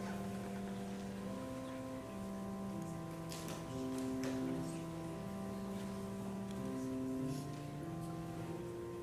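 Slow instrumental music of long, steady held notes and chords, changing every second or so.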